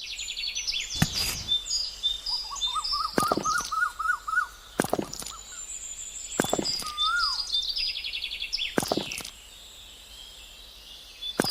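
Birds chirping and singing, with short high notes throughout and a run of quick rising notes in the first half. Several sharp knocks or taps come at irregular gaps of one to two seconds.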